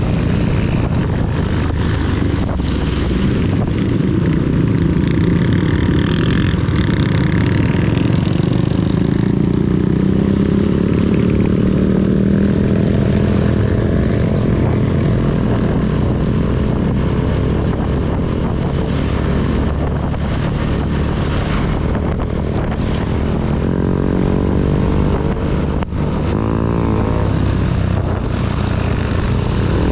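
Honda CB250 motorcycle engine running under way, its pitch climbing over several seconds as it accelerates and then holding steady, with a brief drop and recovery near the end. A steady hiss of rain and wind noise lies over it.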